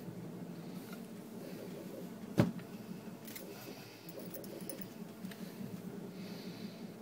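Small gearbox parts being handled: metal thrust-bearing washers and 3D-printed plastic gears clinking and rattling, with one sharp knock about two and a half seconds in, over a steady low hum.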